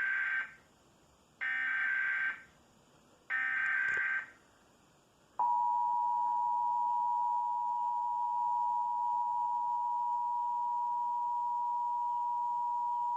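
Emergency Alert System signal for a Required Monthly Test: three short buzzy SAME digital header bursts about two seconds apart, then the two-tone attention signal (853 Hz and 960 Hz sounded together) held steady for about eight seconds.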